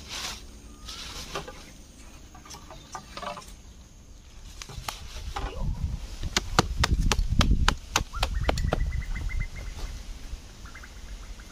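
Rustling and handling of a plastic sheet and a backpack as gear is packed up, with a run of sharp clicks and knocks in the middle and a quick series of small ticks near the end.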